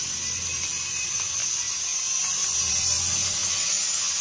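Cheap toy quadcopter drone in flight, its small motors and propellers giving a steady high-pitched whine that wavers slightly in pitch as it moves.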